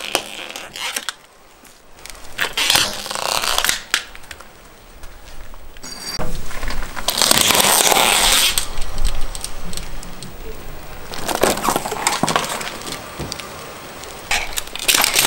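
Car tyre rolling slowly over small objects on concrete and crushing them: several separate bouts of crunching and cracking, with a stretch of low rumble midway.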